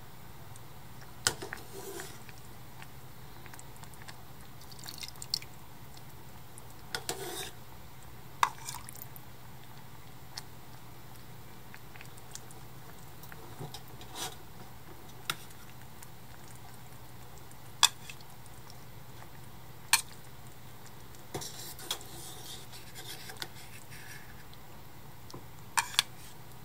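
White plastic ladle scooping broth, tofu and fish balls from a thin aluminium pot into a bowl: a dozen or so sharp clicks as it knocks the pot and bowl rims, with soft liquid sloshes between them.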